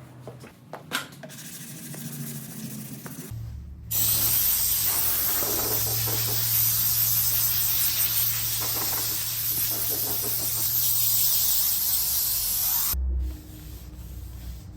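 Air spray gun spraying primer in one continuous pass, a loud steady hiss that starts about four seconds in and cuts off sharply about nine seconds later, with a low hum underneath.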